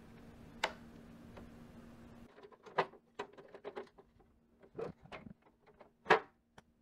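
Objects being handled inside a refrigerator: a plastic crisper drawer clicks, then eggs are picked out of a plastic egg tray, with a run of light clicks and knocks of eggshell on plastic. The loudest knocks come about three seconds in and near the end. A faint steady hum runs under the first two seconds.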